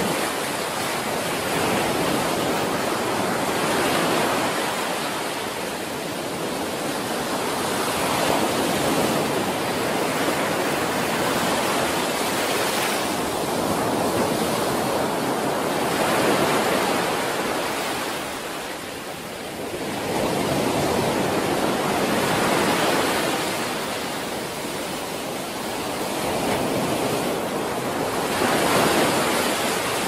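Ocean surf breaking on a beach: a continuous rush of waves that swells and eases every few seconds.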